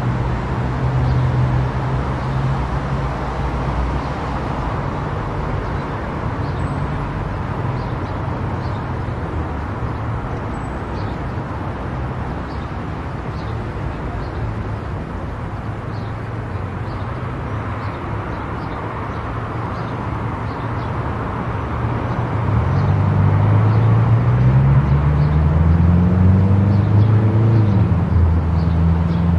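Car driving on a highway: steady engine hum and road noise. About two-thirds of the way through, an engine note rises in pitch and grows louder.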